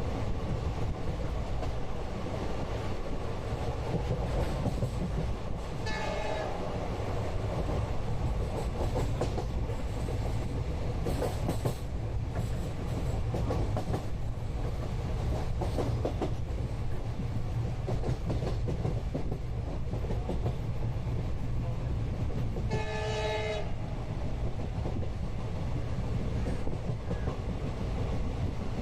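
Passenger train running, heard from inside the carriage: a steady rumble with scattered clicks of wheels over rail joints. A horn sounds twice, briefly about a fifth of the way in and for about a second about three-quarters of the way through.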